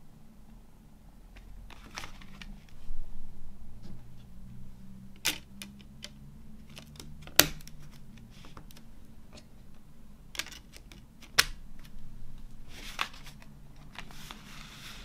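CDs and a digipak's clear plastic disc tray being handled, giving a handful of sharp plastic clicks, the loudest about seven seconds in. Near the end comes a rustle of cardboard panels being opened out.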